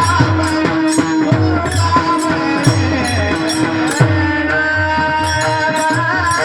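Devotional bhajan music: a mridang plays a steady stroke rhythm under sustained, held melody tones, with short high metallic strokes throughout.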